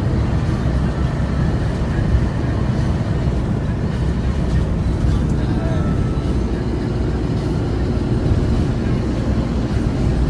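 Steady drone inside the cab of a JAC 16-seat minibus cruising at an even speed: the hum of its 2.8-litre turbocharged engine mixed with tyre and road noise.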